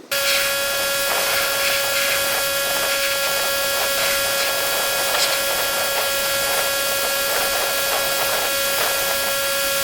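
Pressure washer running steadily: a constant machine whine over an even hiss of spraying water, starting abruptly and holding without change.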